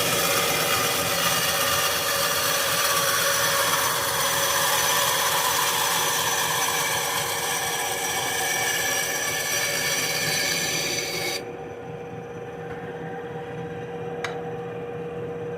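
Harbor Freight benchtop bandsaw ripping through a 2x4, the blade's steady rasp in the wood over the motor's hum. About eleven seconds in the blade breaks through and the rasp stops, leaving the saw running free, with a single click near the end.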